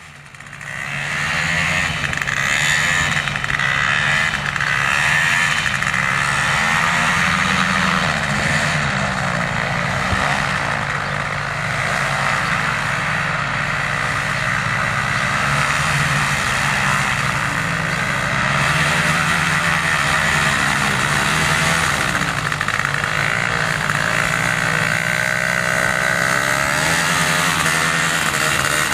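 Small engine of an ultralight minitrike running steadily as the trike rolls across grass, fading in over the first second or so.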